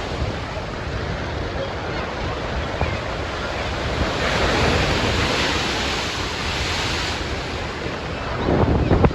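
Ocean surf breaking and washing up a beach, with wind buffeting the microphone. The hiss of a wave swells about four seconds in and fades by seven, and the wind rumble on the microphone grows louder near the end.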